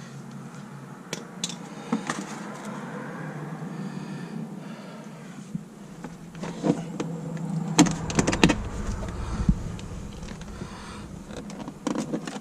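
Scattered clicks, light rattling and scraping of plastic parts and fasteners being handled around a car's headlight housing, with a louder cluster of knocks about eight seconds in.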